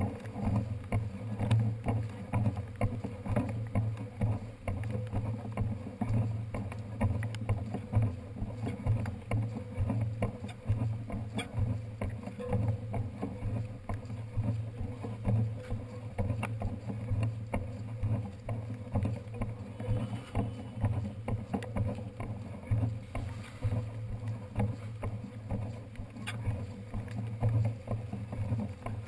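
Rumbling and rattling of a bicycle being wheeled along wet pavement, picked up through a handlebar-mounted camera, with many small clicks and knocks.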